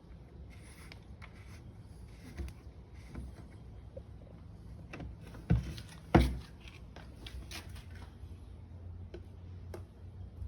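Handling sounds of plastic equipment: light clicks and rustles, with two sharp knocks a little past the middle. No motor runs, since the robot does not respond to the power button.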